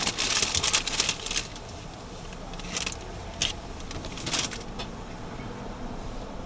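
Rustling and handling noises inside a vehicle cabin: a cluster of short crinkling rustles at the start, then a few single ones, over a low steady engine rumble.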